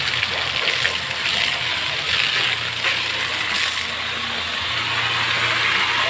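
Water gushing steadily from the open drain pipe at the bottom of a stainless steel water tank, splashing onto the ground.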